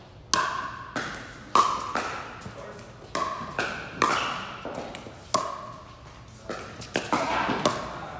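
Pickleball rally: a string of sharp, hollow pops of paddles striking the plastic ball, and the ball bouncing on the court, coming every half second to a second and echoing in a large indoor hall.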